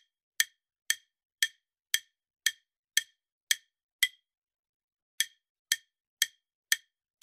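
Quiz countdown timer sound effect: sharp, even ticks, about two a second. The ticks pause for about a second after four seconds, then resume.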